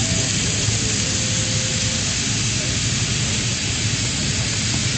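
Steady hiss of water spraying and falling from the fire brigade's heavy-rain simulation, with a steady low engine hum underneath.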